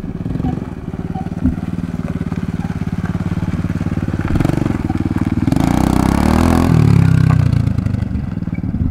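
Small dirt bike engine running while ridden: steady at first, then the revs climb about four seconds in, with a rush of noise over the engine for a second or so before the revs drop back.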